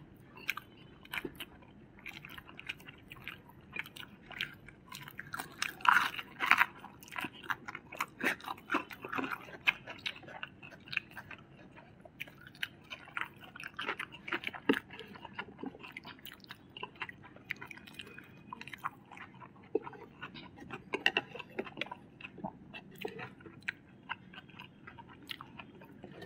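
Close-up chewing and crunching of crispy fried food: many short, crisp crunches and mouth clicks, loudest about six seconds in.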